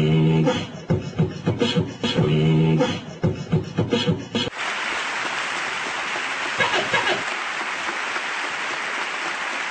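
A man's speech chopped and looped into a beatbox pattern: clipped mouth sounds in a rough rhythm, with a short held hum twice. From about four and a half seconds in, steady applause from a large audience takes over.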